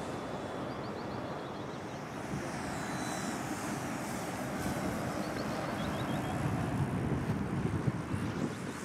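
Steady wind rumble on the microphone. About three seconds in, a faint high whine falls in pitch as a model plane passes, and there are a few faint bird chirps.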